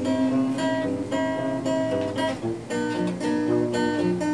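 Acoustic guitar strummed in a steady rhythm, changing chord about halfway through.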